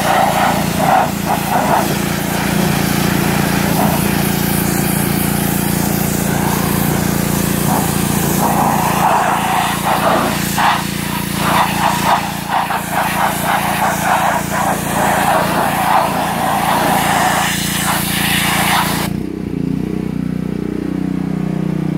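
Gas pressure washer's small engine running steadily under the hiss of its water jet blasting brake dust off a car's wheel. About 19 s in the spray stops suddenly as the trigger is released, and the engine keeps running with its note changing.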